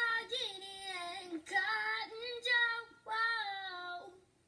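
A young girl singing a short show-intro jingle in three held phrases, with brief pauses between them.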